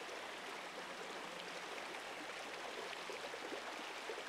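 Water of a shallow, rocky stream running over stones, a steady rushing.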